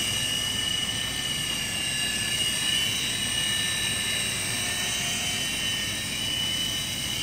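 Auldey SkyRover Navigator toy RC helicopter in flight: its small electric motors and rotors give a steady high-pitched whine over a whirring hiss.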